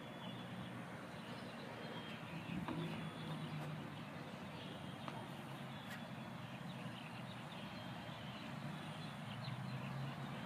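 Quiet outdoor ambience: a steady hiss with a faint low hum that swells about three seconds in and again near the end, and a few faint ticks.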